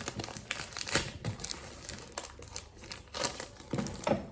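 Packaging crinkling and rustling as it is handled, in quick irregular crackles with a few sharper ones.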